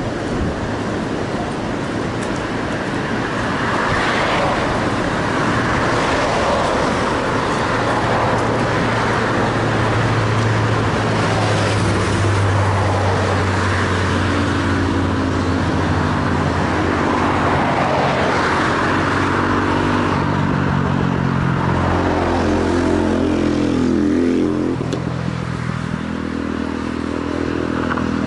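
Road traffic passing on the bridge roadway: vehicles going by one after another, the tyre noise swelling and fading. In the second half an engine's drone, steady in pitch, comes through and fades briefly near the end.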